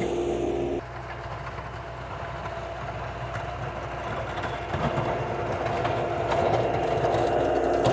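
Skid steer engine running steadily while pushing the converted truck plow through snow. It drops in level sharply about a second in, then slowly builds again.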